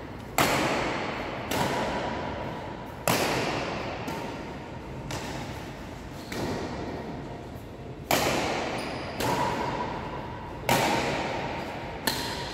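Badminton rackets striking a shuttlecock in a rally, a sharp hit every one to two seconds, each one ringing on in a large, echoing hall.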